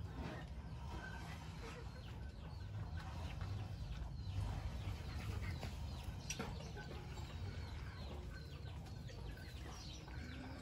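Domestic chickens clucking with short calls scattered at irregular intervals over a low steady rumble, with one sharp click about six seconds in.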